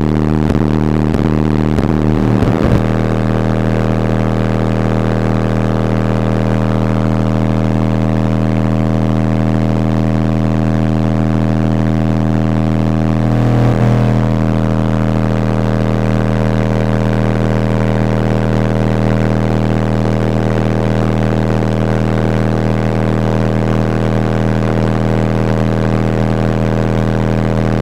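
Skar Audio ZVX-15 15-inch subwoofer driven at about 2,200 watts, well past its 1,500 W RMS rating, playing loud bass. For the first couple of seconds the bass swoops up and down in pitch, then it settles into one steady droning bass tone with many overtones.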